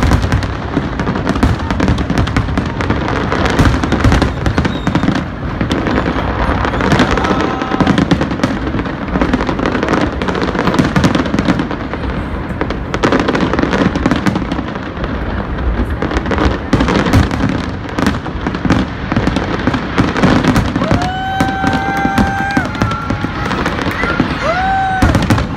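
Fireworks display: a dense, unbroken barrage of shell bangs and crackling bursts. A horn sounds twice near the end, first a long blast and then a short one.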